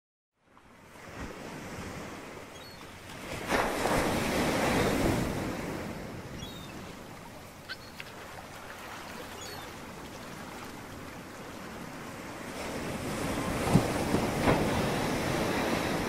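Ocean surf: a continuous wash of waves, with two bigger waves breaking, about four seconds in and again near the end.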